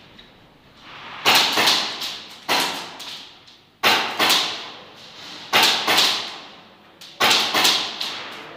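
Airsoft gunfire in an indoor arena: clusters of two or three sharp cracks repeating every second or so, each ringing out briefly.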